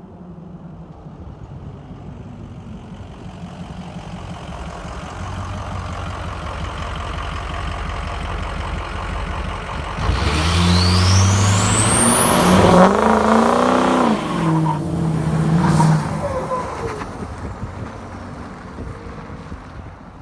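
Ford 6.0 L Power Stroke V8 turbodiesel pickup coming closer, then accelerating hard past under full throttle with a steeply rising turbo whistle and the engine note bending up and then down. The sound then fades as the truck moves away.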